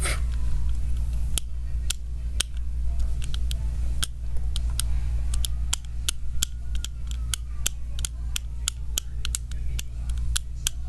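Sharp plastic clicks at an uneven pace, coming faster after about six seconds, from the buttons of a fidget cube being pressed, over a steady low hum.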